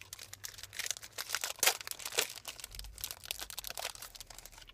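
Foil wrappers of Upper Deck hockey card packs crinkling and tearing as they are ripped open and handled: an irregular run of crackles, sharpest about a second and a half to two seconds in.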